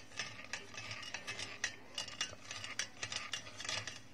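A spoon scraping and stirring watermelon pulp against a metal mesh sieve, a quick irregular run of short scratchy strokes as the juice is pressed through.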